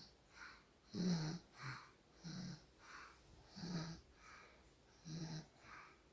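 Soft snoring in a quick, even rhythm: short snores come in pairs, a louder one then a softer one, about every second and a half. Each snore has a low buzz with a breathy hiss over it.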